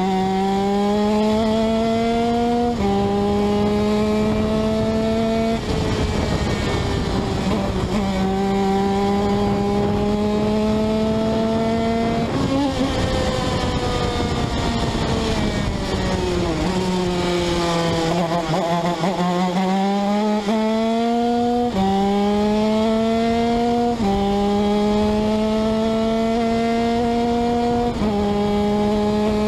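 125cc TM shifter kart's two-stroke engine at full throttle, its pitch climbing in each gear and dropping sharply at each of several upshifts. Around the middle the revs fall away, then build again through the gears.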